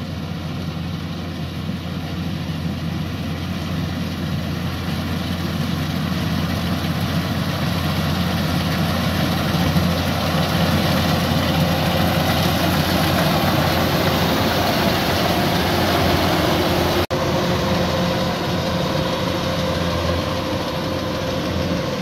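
Kubota DC-105X combine harvester running steadily while cutting rice: a constant engine hum under the noise of its threshing machinery. It grows louder toward the middle, with a momentary break about three-quarters of the way through.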